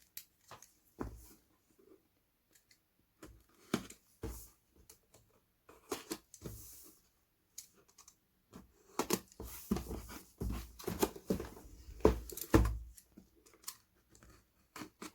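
A craft knife cutting the seal on a cardboard plastic-model kit box, with short tearing and crinkling rasps and irregular knocks and taps of the box being handled on a table.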